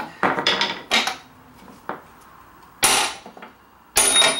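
Small sledgehammer striking a steel cup to drive a worn ball joint out of a Ford/Lincoln front control arm: a quick cluster of clanging blows, a lighter tap, then two heavy ringing blows about a second apart as the joint works loose.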